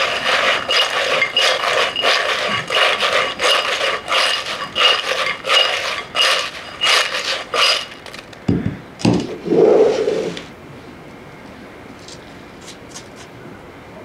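Fried potato fries being shaken in a glass mixing bowl, scraping and rattling against the glass in rhythmic shakes about twice a second, with a faint ring from the glass. About two-thirds of the way through the shaking stops and a few knocks follow.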